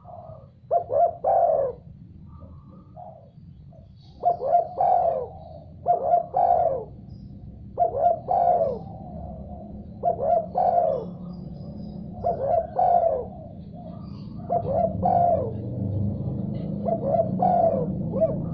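Spotted dove (tekukur) cooing, a short phrase of two or three quick coos repeated about every two seconds, over a steady low hum.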